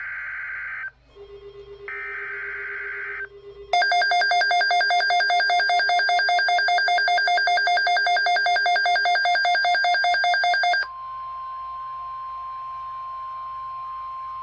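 NOAA Weather Radio emergency alert: two short bursts of screeching SAME digital header data, then a loud, rapidly pulsing electronic alarm beep for about seven seconds. That gives way to the steady single-pitch 1050 Hz weather-radio warning tone, which signals that a spoken alert message follows.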